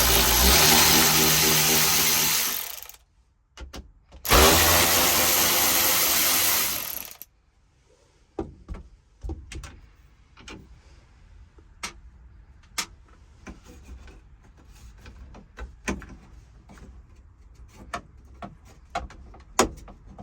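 Power drill-driver running twice for about three seconds each, backing out the 7mm screws that hold a 1994 Ford F150's HVAC control panel in the dash. Scattered small clicks and taps follow as screws and plastic trim are handled.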